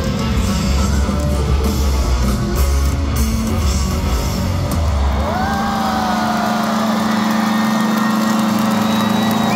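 Live rock band in an arena playing a loud distorted guitar and bass riff. The riff stops about five seconds in, leaving a held note ringing while the crowd yells and cheers.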